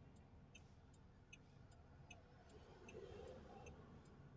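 Near silence with faint, even ticking, about two to three ticks a second.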